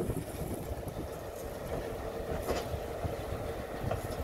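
Tugboat engine running steadily, a low rumble with a faint steady hum, mixed with wind buffeting the microphone.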